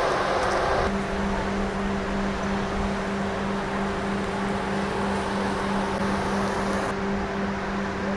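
Steady road and traffic noise with a constant low hum, changing abruptly about a second in and again near the end.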